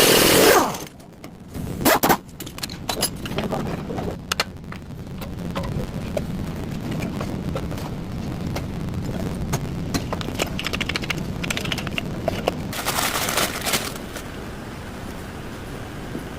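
Workshop work noises: a loud knock at the start and another about two seconds in, then a steady low hum with scattered clicks and a spell of clattering about thirteen seconds in.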